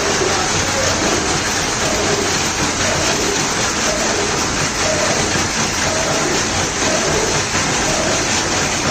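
Gear-cutting machine running steadily while cutting a 3-module, 40-tooth worm gear: a dense, even, hissing machine noise with a faint note that repeats about once a second.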